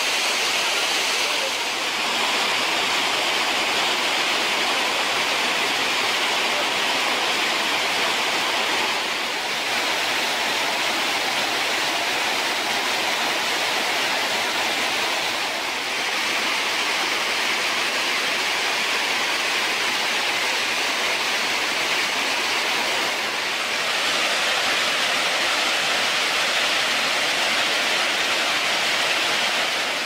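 The Krimml Waterfalls, the glacier-fed Krimmler Ache, falling in a steady, loud rush of white water and spray, dipping briefly in level a few times.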